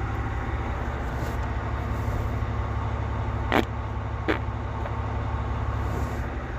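Steady low rumble of a running vehicle, with two short sharp sounds a little under a second apart midway through.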